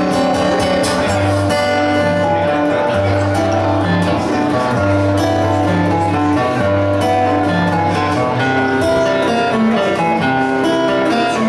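Acoustic guitar played solo, low bass notes ringing under a line of higher melody notes.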